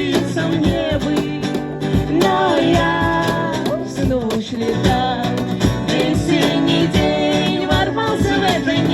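Pop song playing: a voice singing over guitar and a steady beat.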